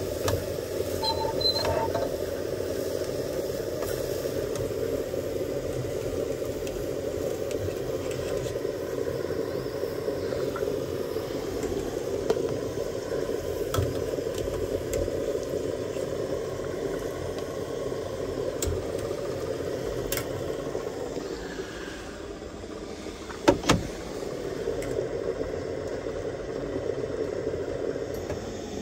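Gas camp stove burners running steadily under a pot of boiling water, with light clinks of metal utensils against the pans. Late on come two sharp metal knocks, the loudest sounds here, as of a strainer spoon tapped on a pot.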